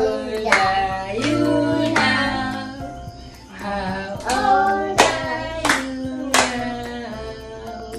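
A family singing a birthday song together and clapping along in time, with the claps standing out sharply over the voices.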